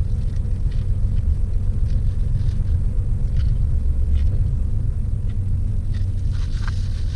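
Low steady rumble of a car engine idling, heard from inside the cabin, with faint crunches of crispy fried chicken being chewed.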